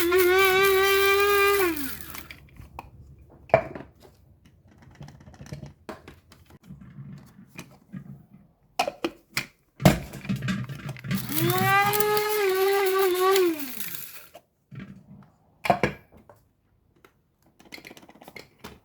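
Electric blade coffee grinder grinding dried herbs: a steady high motor whine that cuts off and spins down about two seconds in, a few sharp knocks, then a second burst of about three seconds that rises in pitch as it spins up and falls away as it stops.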